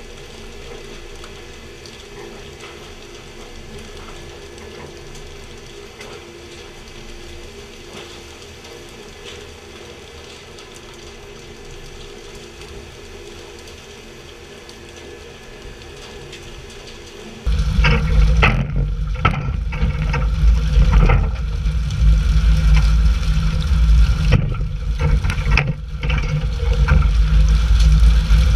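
Steady hiss and wash of water spraying over the sea beside a pole-and-line tuna fishing boat, with a faint steady drone under it. About two-thirds of the way through it switches suddenly to a much louder low rumble, like an engine, with scattered knocks and thumps.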